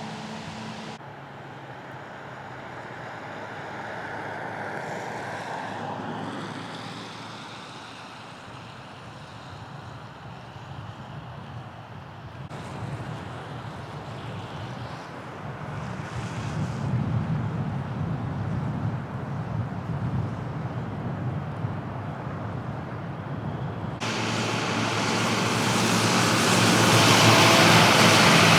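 Street traffic passing on a snowy street: engine and tyre noise swelling and fading as vehicles go by. The sound changes abruptly a few times, and the last few seconds are the loudest, with a strong hiss.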